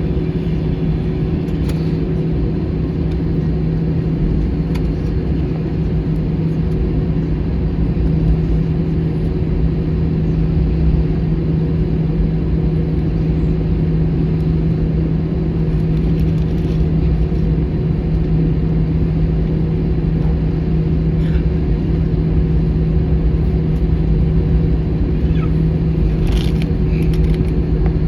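Steady low hum and rumble inside an Airbus A321 cabin while it waits at the gate before pushback, with air conditioning and ventilation running. A few faint clicks are heard near the end.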